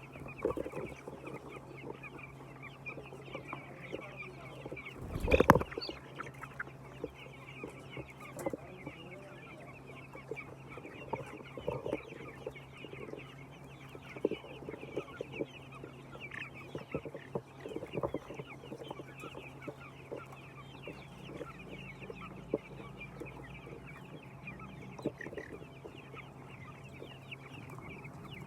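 A flock of laying hens clucking and calling continuously, many short overlapping calls, over a steady low hum. One louder burst stands out about five seconds in.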